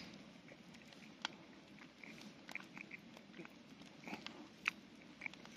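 Wood campfire crackling: faint, irregular sharp pops and snaps over a low hiss from the burning wood and embers.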